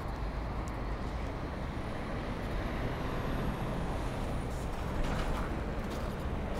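Steady city road traffic: cars driving past on a multi-lane street, a continuous rumble of tyres and engines.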